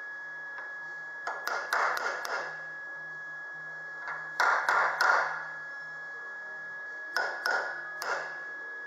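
Steel box end cap being tapped into a classic Mini's sheet-steel inner wing with a body hammer to seat it flush: three short runs of light, ringing metal-on-metal taps, a few strikes each, a couple of seconds apart.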